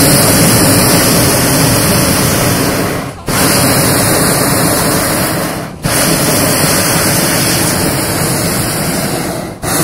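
Hot-air balloon's propane burner firing overhead in long blasts, heating the air in the envelope, with brief breaks about three seconds in, near six seconds, and shortly before the end.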